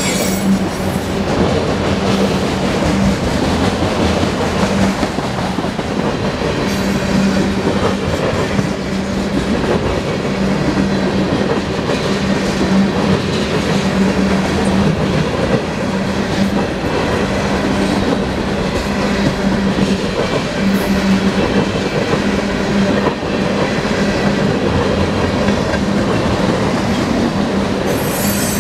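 Cars of a mixed freight train rolling past at a grade crossing, steel wheels clattering steadily over the rails.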